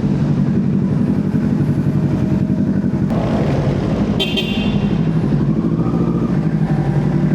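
Motorcycle engine running steadily while riding, with fast, even firing pulses. A short high-pitched horn-like beep sounds about four seconds in.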